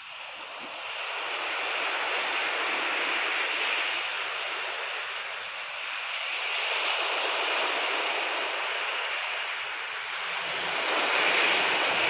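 A steady rushing noise that swells and fades slowly every few seconds.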